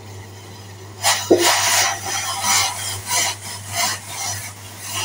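A metal spoon scraping round a small stainless-steel saucepan, stirring ground coffee into boiling water. The scrapes begin about a second in and repeat at roughly two to three strokes a second.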